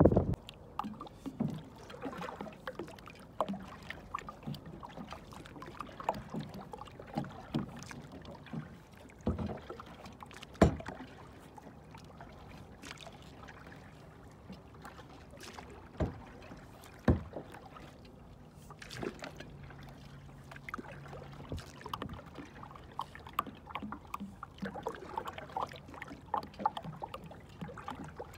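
Water lapping against a plastic kayak hull, with scattered knocks and clicks on the hull. The loudest knocks come about ten and seventeen seconds in.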